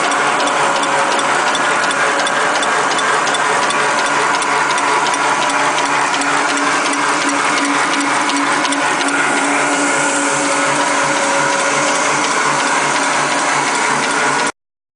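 Napkin paper folding machine running, a steady mechanical clatter with a fast, even ticking from its folding and feed mechanism and a steady hum underneath. The sound cuts off suddenly near the end.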